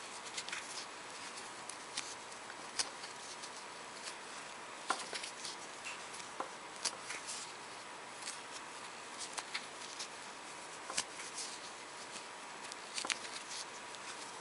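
Soft, irregular clicks and rustles of a metal crochet hook and yarn being worked by hand, stitching single crochets, over a faint steady hiss.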